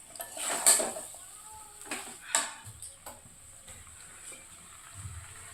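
A few scattered sharp clinks and knocks of utensils against dishes, the loudest a little under a second in and again near the middle.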